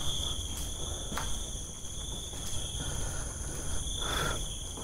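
Crickets chirring in a steady, high-pitched chorus, with a faint low rumble underneath.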